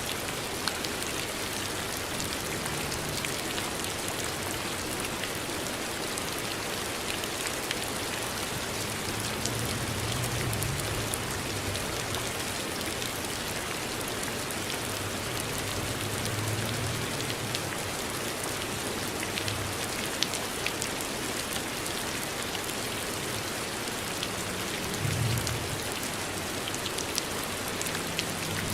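Steady rain falling on a surface: a continuous hiss with fine patter of drops. A few brief, faint low hums rise out of it, about a third of the way in, past the middle and near the end.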